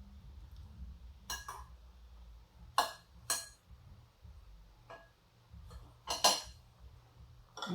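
Metal cutlery clinking against a dish while eating: a handful of short, sharp clinks at irregular intervals over a faint low hum.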